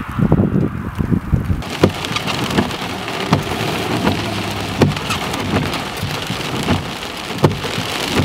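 Gusty wind buffeting at first, then about a second and a half in, heavy storm rain suddenly starts pelting the car's windshield and body. It goes on as a dense, steady hiss with a sharp knock roughly every second, heard from inside the car.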